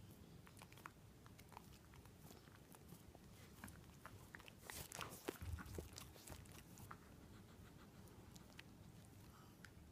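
Faint, wet mouth clicks from a smooth-coated miniature dachshund licking her paws: quick, irregular licks, with a louder, busier run about halfway through.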